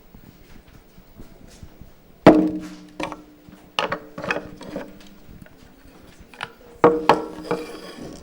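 Knocks and clatters of objects being handled: a loud knock about two seconds in, then several more, some ringing briefly.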